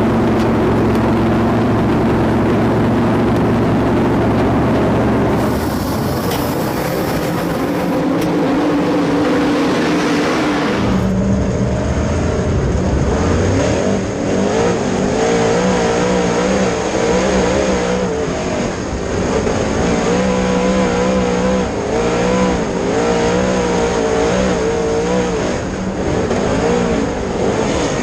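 Dirt late model race car's V8 engine running hard. It holds a steady note at first; after a sudden change about eleven seconds in, it rises and falls in pitch again and again as the throttle is worked on and off.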